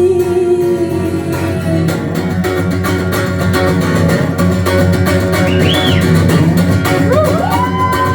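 Live rock band playing the song's instrumental ending on guitars and bass guitar, opening with a long held note. Near the end, high whoops from the audience rise over the band.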